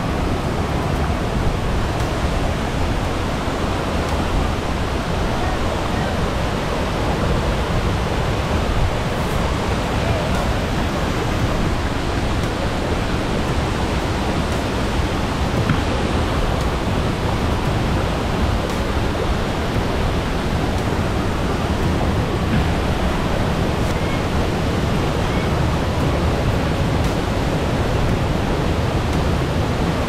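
Waterfall plunging into a pool and a shallow river running in rapids over boulders: a loud, steady rush of water that does not change.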